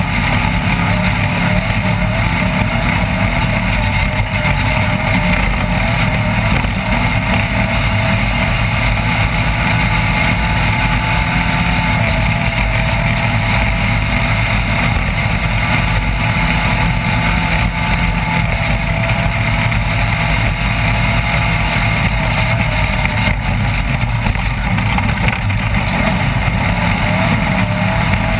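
Off-road race car running steadily at speed: a loud, continuous engine sound whose pitch wavers only slightly, mixed with a constant noise.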